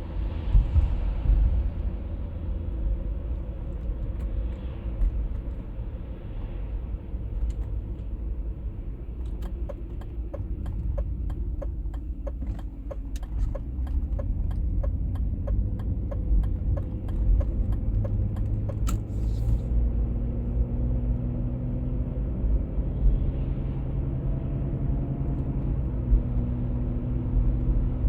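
A 1996 BMW E39 523i automatic being driven, with steady low road and drivetrain rumble. About two-thirds of the way through, a steady low hum comes in: the humming noise the owner is trying to diagnose, with the cause not yet known. A regular ticking runs for several seconds in the middle.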